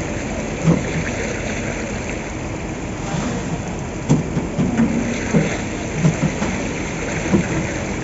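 Steady rushing, rain-like noise of wet concrete being poured on a construction site, with a few short knocks from steel wheelbarrows and one sharp clank about four seconds in.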